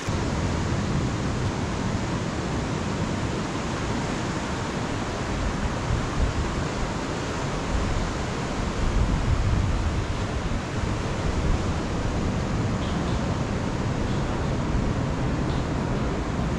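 Ocean surf washing steadily on a beach, a little louder around the middle.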